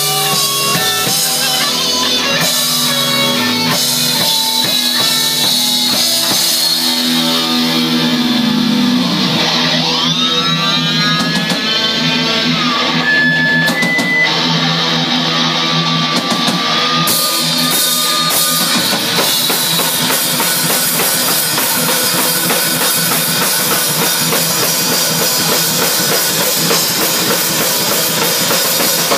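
Rock band playing live: distorted electric guitars over a drum kit, with an electric guitar making a swooping pitch glide about ten seconds in.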